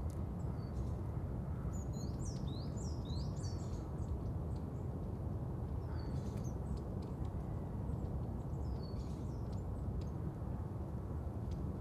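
Birds chirping in short, quick clusters of high notes over a steady low background rumble, like a recorded outdoor ambience.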